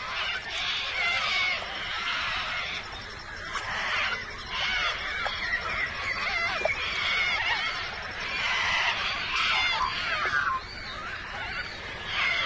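A flock of little corellas screeching, many harsh calls overlapping without a break.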